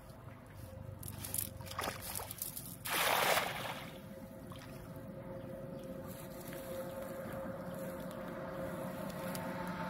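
A cast net is thrown and lands with a splash on a shallow pond about three seconds in, after some brief rustling as it is swung. A steady droning tone grows slowly louder in the background after the splash.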